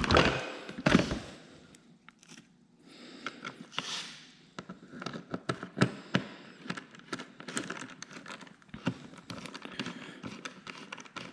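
Irregular clicks, taps and light knocks of small parts and hand tools being handled, with a louder knock about a second in.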